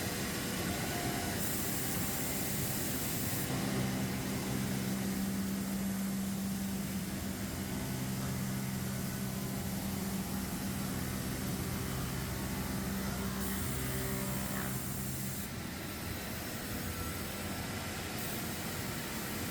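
Sawmill machinery running with a steady hum, its pitch shifting in stages as units start and stop. Two bursts of high hiss, each about two seconds long, come about a second and a half in and again near three-quarters of the way through.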